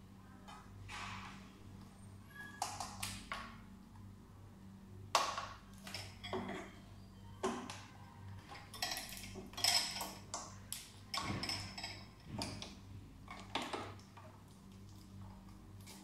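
Gloved hands working on parts inside an opened laser machine's cabinet: irregular clicks, light knocks and rustles, busiest in the middle, over a low steady hum.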